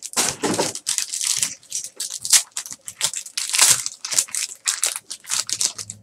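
Foil trading-card pack wrapper being torn open and crumpled by hand: a rapid, irregular run of crinkling rips that stops near the end.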